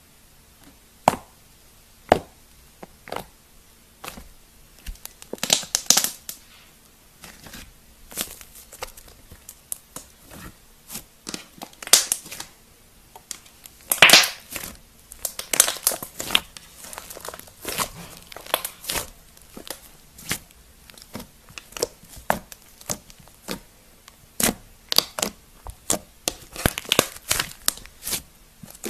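Thick purple slime being squeezed, pressed and poked by hands, giving irregular crackling clicks and pops, with denser clusters about six and fourteen seconds in.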